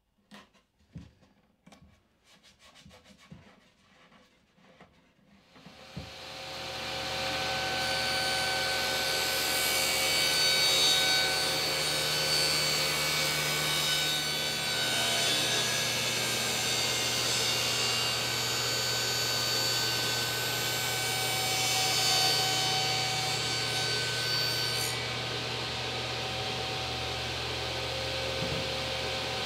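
Masking tape being pressed and smoothed onto plywood, with soft rustles and clicks. About six seconds in a table saw starts up, builds over a couple of seconds and then runs steadily, with its highest part dropping away near the end.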